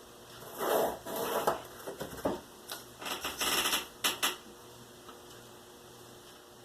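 Scraping, rustling and a few clicks of cardboard and hand tools being handled on a work surface, in a run of short bursts lasting about three and a half seconds.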